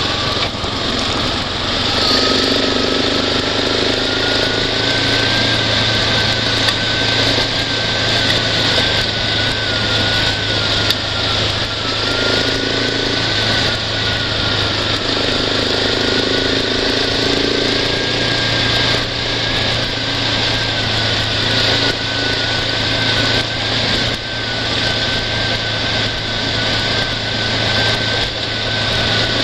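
A small off-road vehicle's engine running steadily as it drives along a dirt road, with a whine that drifts slightly up and down in pitch over a constant low hum and a rushing noise of wind and tyres on the road.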